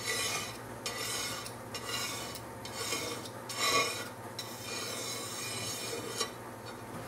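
Razor blade scraping dried spray-adhesive resist off sandblasted glass in repeated rasping strokes, a little under one a second, the last one drawn out longer.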